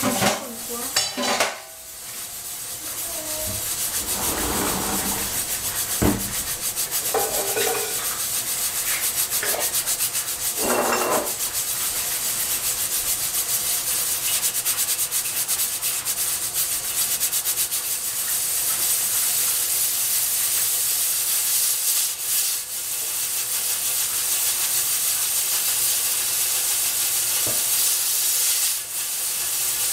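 Stovetop pressure cooker built up to high pressure, steam venting from its valve in a steady loud hiss. A few short uneven sounds come through over it in the first ten seconds or so.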